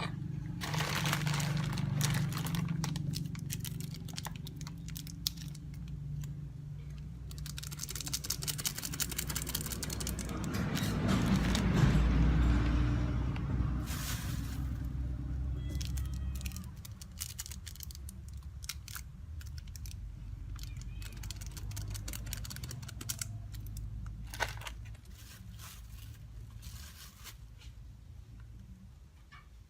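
Food being prepared by hand: rustling and tearing of seasoning packets and scattered clicks of utensils against a bowl, over a low steady hum, with a louder, denser stretch of handling noise in the middle.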